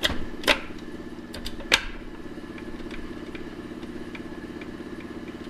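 Metal clicks and clunks from a Cushman kei mini truck's manual transmission as its shift mechanism is worked by hand to check that fourth gear engages: three sharp clunks in the first two seconds, then a few light ticks. A steady machine hum runs underneath.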